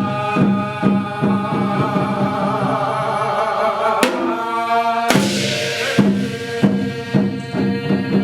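Korean shaman ritual (gut) music in the Hwanghae-do style: a voice chanting and singing over steady drum beats, with two loud crashes about four and five seconds in.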